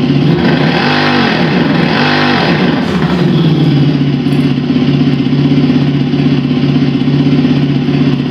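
Engine-sound simulator speaker on a Super Soco electric motorcycle playing a synthetic motorcycle engine sound. It idles, is blipped twice in quick succession about a second in, then settles back to a steady idle.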